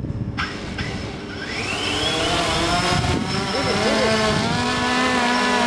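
Small electric motor whining as it spins up, rising in pitch over about a second, then running steadily and growing louder. A couple of clicks come just before it.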